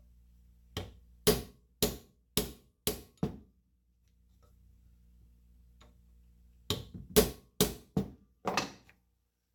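Hammer blows tapping a replacement part home on a vacuum pump: a run of about six quick strikes, then after a pause of about three seconds another run of about six, roughly two strikes a second.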